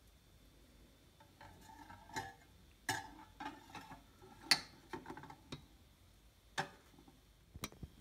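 Espresso glass and white ceramic cup being handled and set down on an espresso machine's perforated metal drip tray: a string of light clinks and knocks, the sharpest about halfway through.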